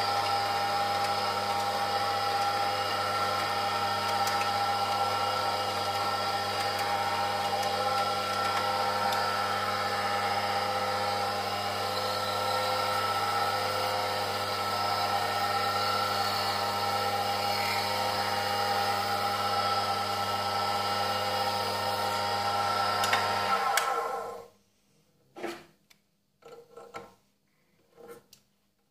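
Mini metal lathe running steadily, a constant motor hum with several steady tones from its drive, until it is switched off about 24 seconds in. A few light metal clinks follow as the toolpost is handled.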